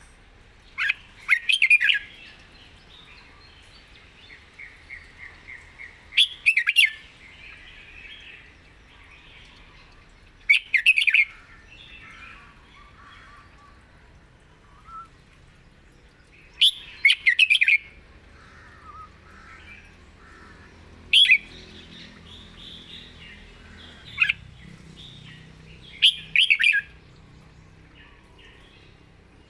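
Red-whiskered bulbul singing: six short, loud whistled song phrases spaced about four to five seconds apart, with softer chirping between them.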